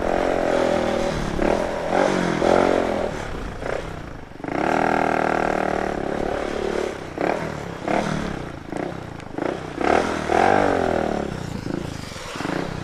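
125cc motorcycle engine running under way, its pitch rising and falling several times as it accelerates and eases off, with a steady stretch of held revs about halfway through.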